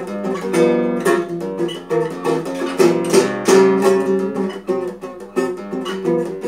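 Nylon-string acoustic-electric guitar played solo, chords strummed in a quick, syncopated rhythm with several strokes a second and picked melody notes between them.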